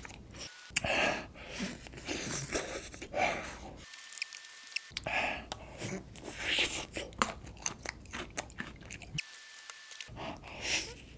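Close-up chewing of mint chocolate ice cream packed with crispy chocolate balls: crisp crunches mixed with wet mouth sounds. The sound drops out to dead silence twice for about a second, once about four seconds in and once near the end.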